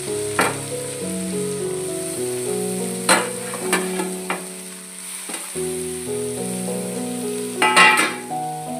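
A spoon stirring and scraping spinach and potatoes in a steel pan, with clatters a few seconds in and a louder cluster near the end, over a faint sizzle. A background music melody plays throughout.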